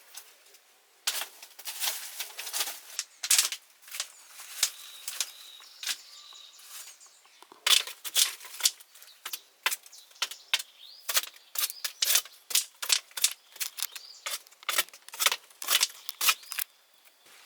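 A long run of sharp, irregular clicks and snaps, some coming in quick clusters, starting about a second in and stopping shortly before the end.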